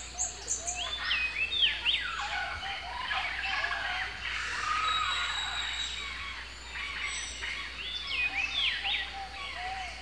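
A colony of fruit bats (flying foxes) calling: many overlapping squawks and chattering calls that rise and fall in pitch, thinning out a little past the middle.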